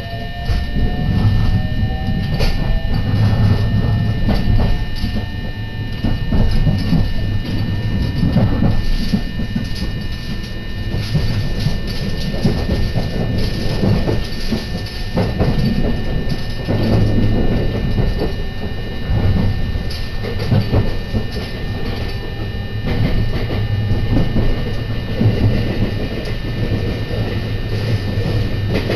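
Electric commuter train heard from inside the car as it pulls away: the traction motors' whine rises in pitch over the first few seconds, then the train runs on with a steady rumble and the wheels clacking over rail joints.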